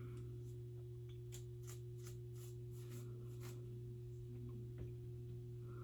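Faint brushing and rustling strokes, about seven in quick succession, of synthetic wig hair being handled and arranged, over a steady low electrical hum.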